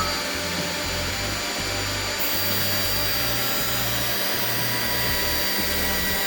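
Lunyee 4040 Turbo CNC router spindle milling wood, a steady cutting hiss with a constant high-pitched whine.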